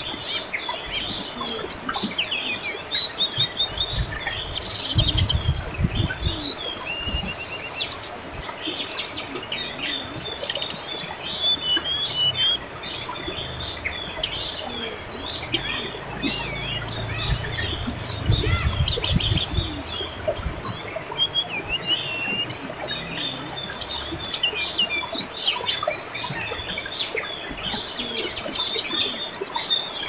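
Many birds chirping and singing at once, quick overlapping chirps and trills, over the steady babble of a river.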